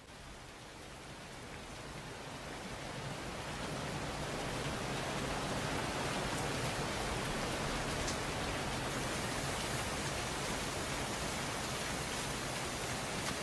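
Steady rain falling, swelling in over the first few seconds and then holding even.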